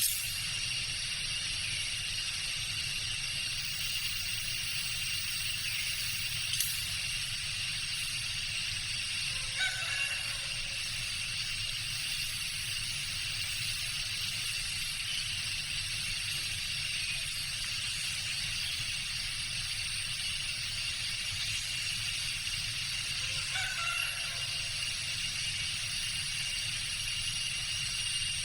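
Tropical jungle ambience: a steady drone of insects holding several high tones, over a low rumble. A fowl crows twice, about ten seconds in and again near the end.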